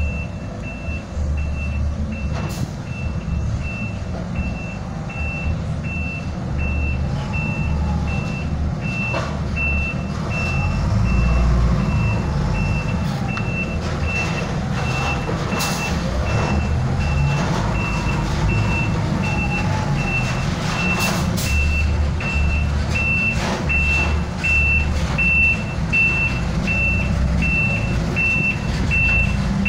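Gas-cylinder delivery truck reversing slowly: its reversing alarm gives an even string of short high beeps over the low running of the truck's engine.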